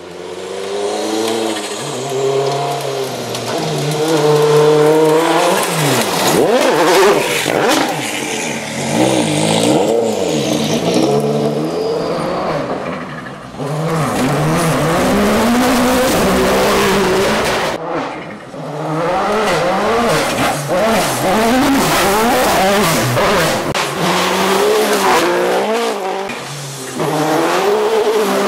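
Toyota Yaris WRC 2017 rally car's turbocharged 1.6-litre four-cylinder engine revving hard and falling away through gear changes on a gravel stage, over several separate passes, with gravel hissing under the tyres.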